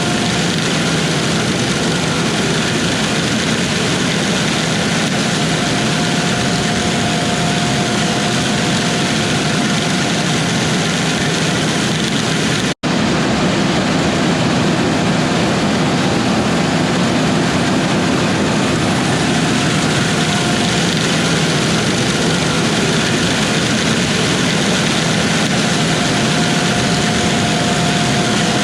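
Heavy diesel harvest machinery running steadily at work, a constant engine and mechanical noise with a faint steady whine, broken by a split-second dropout about halfway through.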